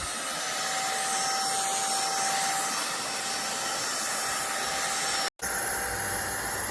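Cordless stick vacuum running at speed: a steady rush of air with a high motor whine. It cuts out for a split second near the end, then runs on with more low rumble.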